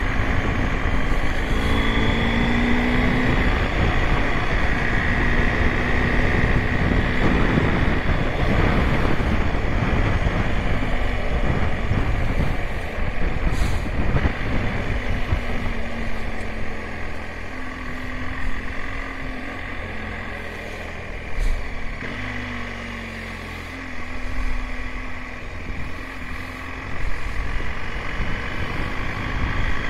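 BMW GS Adventure motorcycle engine running under way. It eases off about halfway through, its pitch falls briefly as it slows, and it pulls harder again near the end.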